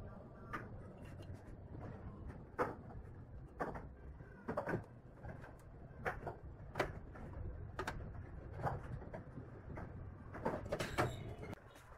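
Light, scattered knocks and clicks of square steel tubing being handled, folded on its hinges and set against a plywood board, roughly one a second with a quick cluster near the end.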